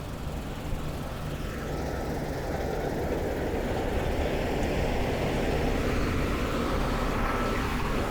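Tractor engine running steadily, growing a little louder over the first two seconds and then holding an even drone.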